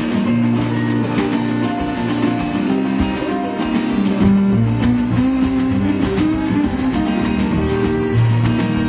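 Live acoustic string band playing an instrumental passage: strummed acoustic guitar and banjo over upright double bass, with fiddle.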